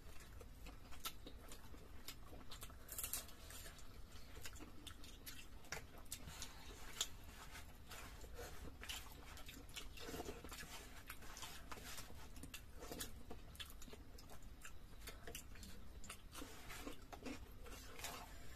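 Faint chewing and small wet mouth clicks of people eating luchi with chicken curry by hand, scattered irregularly over a low steady hum.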